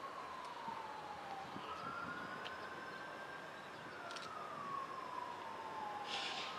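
An emergency vehicle's siren wailing, its pitch sliding slowly down and back up about every four seconds.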